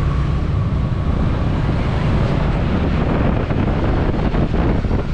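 Steady wind buffeting the microphone, heaviest in the lows, over the hum of passing street traffic.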